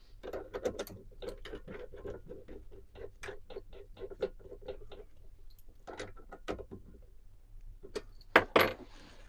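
Small clicks and light metallic knocks as a buffing pad is handled and swapped in a pillar drill's chuck, with two louder knocks near the end.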